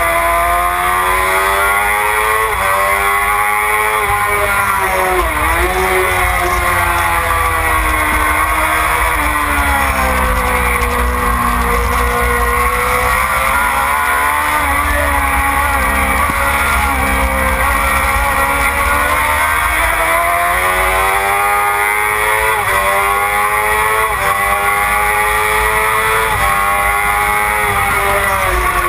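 Supersport racing motorcycle engine under race load, heard from onboard: the revs climb long and high, then drop sharply several times as the rider shifts and brakes for corners, with steady wind rush on the microphone.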